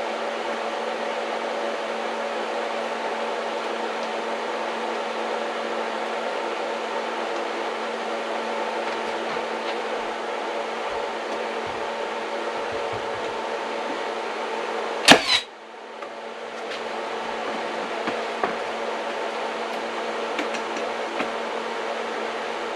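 Steady machine hum holding a few fixed tones, broken about fifteen seconds in by a single sharp crack, after which the hum drops away and slowly builds back up.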